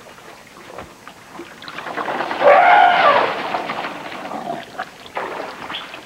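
African bull elephants jostling at a waterhole, one of them giving a single loud call about a second long that rises and falls in pitch, a little over two seconds in.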